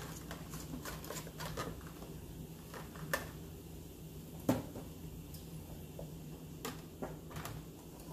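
Scattered light clicks and clinks of glass canning jars, metal lids and screw bands being handled: lids lifted from a pan, bands screwed on finger tight, and jars set into a plastic canning rack, with one louder knock about halfway through. A steady low hum runs underneath.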